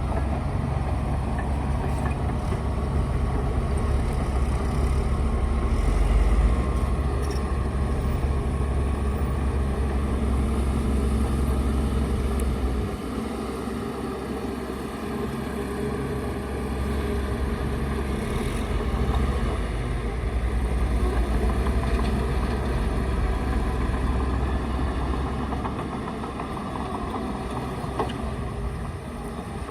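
Bulldozer's diesel engine running steadily under changing load, its level easing off briefly about halfway through and again near the end.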